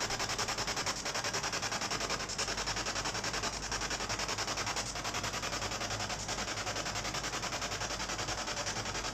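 Steady static-like hiss that pulses rapidly and evenly, several times a second, with a few faint clicks.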